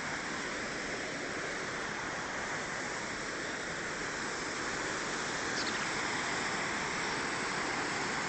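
Fast-flowing mountain water rushing steadily, an even noise with no break, growing slightly louder about halfway through.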